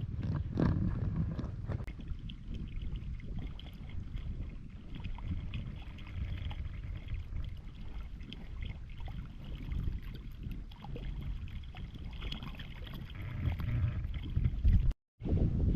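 Water sloshing and splashing as hands and legs work through shallow floodwater, with wind rumbling on the microphone. The sound cuts out for a moment near the end.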